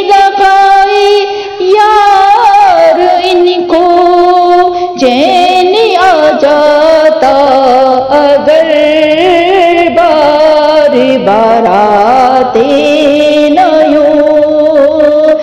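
A woman's voice singing an Urdu naat in long, ornamented phrases, with held notes that bend and waver in pitch.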